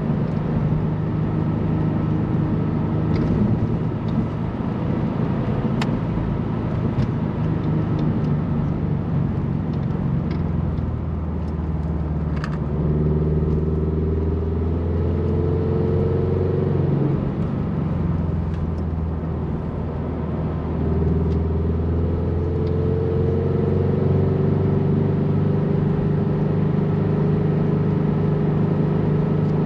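Turbocharged Scion FR-S's flat-four engine and road noise heard from inside the car while driving. The engine note climbs in pitch as the car accelerates about halfway through, falls back as the driver eases off, and climbs again in the last third.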